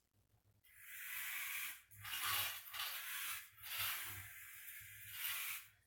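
Small robot car's drive motors whirring as it drives across the arena toward the light, in a few long runs with short breaks between them.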